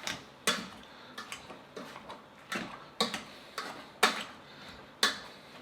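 Potato masher pressing through boiled red potatoes and knocking against the bottom of the pot, about one or two strikes a second at an uneven pace, a few much louder than the rest.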